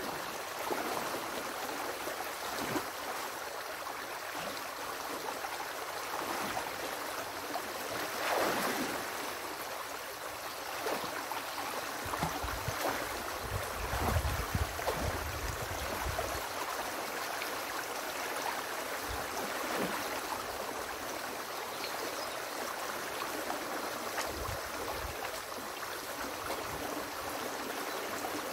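Small river rushing and gurgling through a breached beaver dam, a steady flow of water, with scattered splashes and knocks as the dam's sticks are raked apart. A low rumble comes in around the middle.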